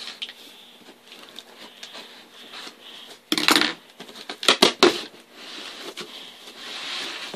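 A cardboard shipping box being opened by hand: its packing tape slit and pulled along the top seam. There is faint scraping at first, a loud rasp a bit over three seconds in, a few sharp knocks on the cardboard around four and a half to five seconds, and a longer hissing scrape near the end.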